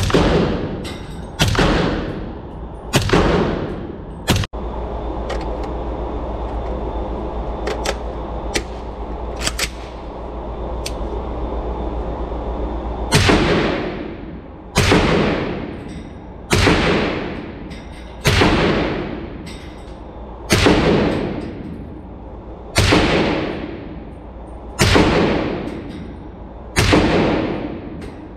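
Suppressed Noveske 300 Blackout AR-pattern rifle fired in steady single shots, each crack followed by a fading echo in an indoor range. Four shots of subsonic 220-grain ammunition come about a second and a half apart. After a pause of about eight seconds with a steady hum and a few faint clicks, eight shots of 150-grain ammunition follow about two seconds apart.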